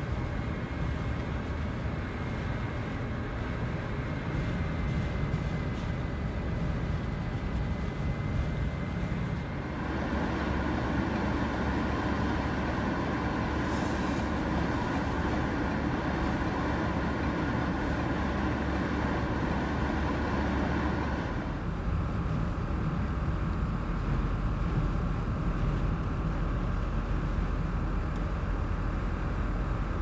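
Wind and road noise heard inside a car's cabin as it drives through a blizzard with gusts of about 70 mph: a steady noise of wind against the car mixed with engine and tyre rumble. The sound changes abruptly twice, and a faint steady high whistle runs through the first third.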